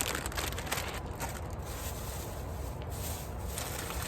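Faint rubbing and rustling of a packaged grocery being handled and set into a fridge, with a few light scrapes and clicks over a steady low hum.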